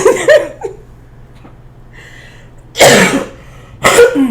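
A woman coughing: two short, loud coughs about three and four seconds in, after the tail of a vocal exclamation at the start.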